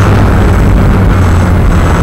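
Walkera QR X350 Pro quadcopter's brushless motors and propellers in flight, picked up by its own onboard camera: a loud, steady hum with a dense rushing noise over it.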